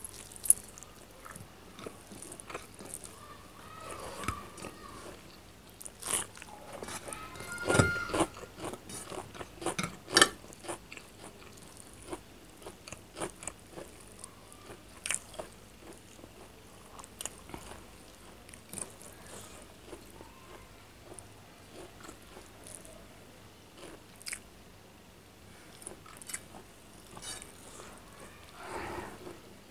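Close-miked eating sounds of a meal of chicken curry with rice: irregular chewing, with sharp crunchy bites scattered throughout, several louder ones between about six and ten seconds in.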